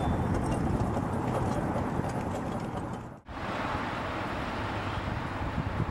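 Riding cars of a 1/8-scale live steam train rolling past on the track, a steady rumble with faint clicks from the wheels. The sound breaks off abruptly about three seconds in and gives way to a steady rushing noise.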